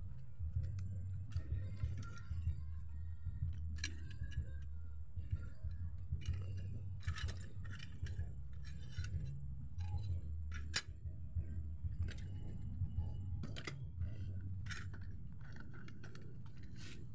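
Metal parts of a rusty pedal scooter being handled and taken apart by hand: scattered clicks, clinks and light scrapes, over a steady low hum.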